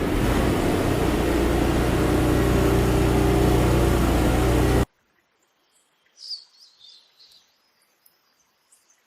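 A loud, steady mechanical rumble with a low hum, like a machine or vehicle running, cuts off suddenly about five seconds in. Near silence follows, with a few faint high bird chirps.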